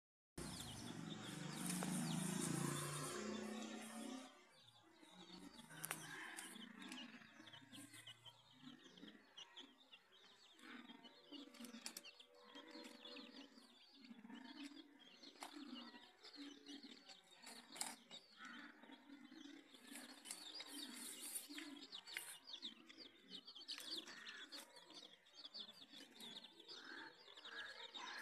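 Chicks peeping in many short high chirps over a hen's soft, repeated low clucking. A louder burst of noise fills the first four seconds.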